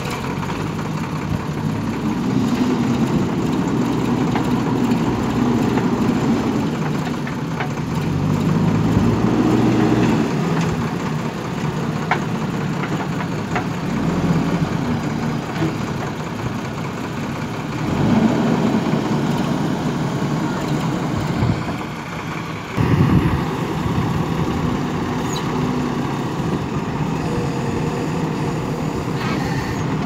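JCB 3DX backhoe loader's diesel engine running and revving up and down in several swells as the machine works, with a sudden louder surge about three quarters of the way through.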